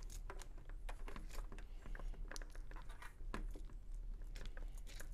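Hands handling a football helmet chin strap: the fabric strap sliding through a metal D-ring and a plastic buckle being fitted, an irregular run of small rustles, scrapes and clicks.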